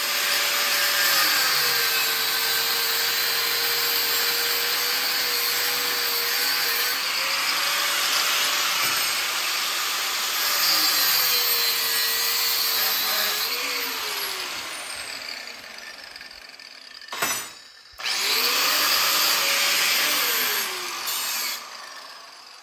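Corded angle grinder grinding steel clamped in a vise: a loud hissing grind over the motor's whine, which dips in pitch as the disc bears into the metal. The grinder stops briefly with a sharp knock about three quarters of the way through, runs again, and winds down near the end.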